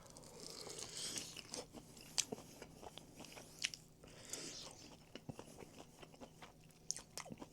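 Faint crunching and chewing as a person bites into and eats a corn side item from a fried-chicken order, with sharp crunches scattered through.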